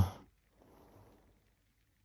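A sleeping woman's snore breaking off just after the start, then a faint breath in the gap before the next snore.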